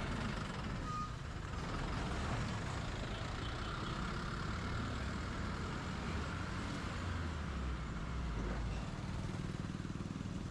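Road traffic: the steady low rumble of motor vehicle engines, growing louder for a few seconds in the middle.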